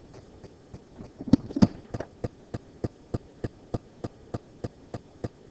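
Two louder knocks about a second and a half in, then steady, evenly spaced sharp clicks or taps, about three a second.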